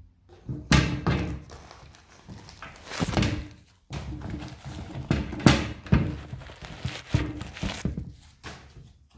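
Handling noise: a run of uneven thumps and rubbing as the phone and the sneakers are moved about and knocked against each other. The loudest knocks come about a second in and around five and a half seconds in.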